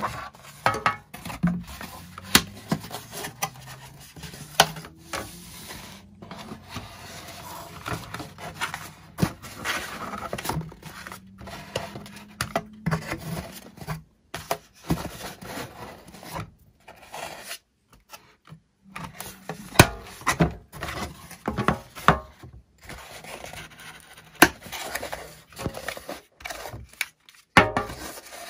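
Hands handling packaging and order materials: rustling and rubbing with frequent sharp clicks and taps, cut off abruptly several times.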